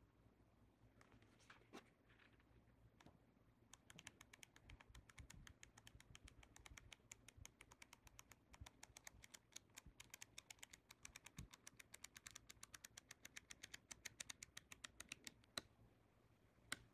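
Paper pages of a hand-drawn flipbook flicking off the thumb one after another: a faint, rapid run of ticks starting about four seconds in, after a few light handling sounds, with two sharper clicks near the end.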